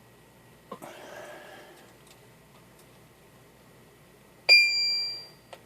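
Simulated Browning ping circuit sounding one electronic ping through a mic-tester amplifier about 4.5 s in: a sudden high, bell-like tone that fades out in under a second as the circuit's electrolytic capacitor discharges. A click and a brief rustle come about a second in.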